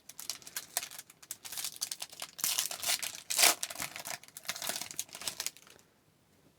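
Hockey card pack wrapper being torn open and crinkled: a run of dense crackling and rustling, loudest about halfway through, dying away about a second before the end.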